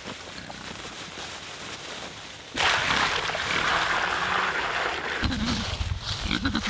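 A plastic bucket being emptied onto the ground: a steady rushing pour that starts suddenly a little over two seconds in and lasts about two and a half seconds. A lower rumble follows near the end.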